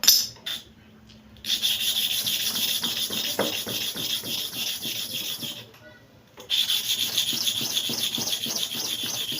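Hair-clipper blade being rubbed back and forth by hand on an abrasive sharpening surface in rapid scraping strokes, two runs of strokes with a short pause between them, after a brief clack right at the start. This is the blade being lapped flat to sharpen its cutting edge.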